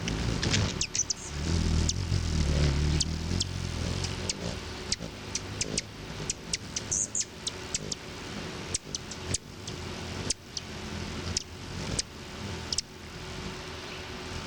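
Hummingbirds' aggressive buzzing: a low wing hum, loudest in the first few seconds, with many quick, sharp, high chip calls scattered throughout.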